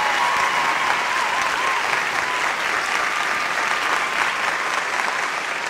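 Audience applauding steadily at the end of a poetry recitation.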